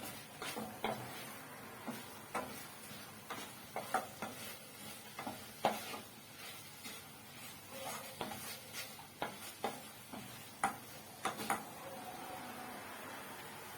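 A spoon scraping and knocking against a pan as pieces of pork are stirred, in irregular strokes, with a faint sizzle of the meat frying dry in its own juices before any oil is added; the sizzle becomes a steady hiss near the end.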